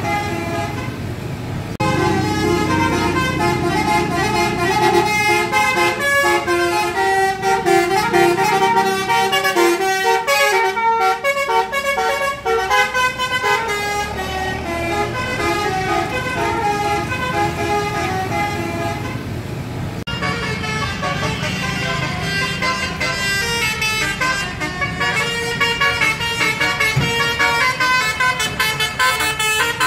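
Telolet basuri horn on a vehicle playing a long tune of many short notes in quick succession, over engine noise. The horn gets louder about two seconds in.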